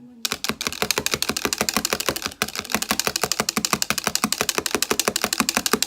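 Cream being whipped by hand in a bowl, the utensil clicking rapidly and evenly against the bowl at about ten strokes a second, with a brief pause about two and a half seconds in.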